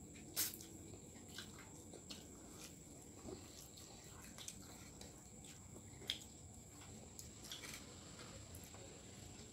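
Faint eating noises from children eating rice and fish with their fingers: chewing and lip-smacking with scattered small clicks, the sharpest about half a second in and again about six seconds in.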